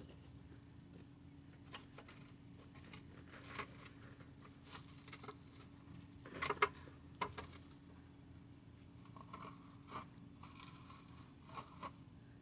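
Scattered light clicks, scrapes and rustles of parts being handled, loudest in a short cluster a little past the middle, over a faint steady hum.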